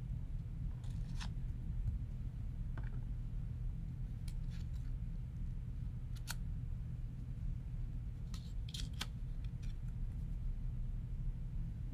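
Cut paper collage pieces being lifted and pressed down as they are glued in place: scattered brief crinkles and taps of paper, over a steady low hum.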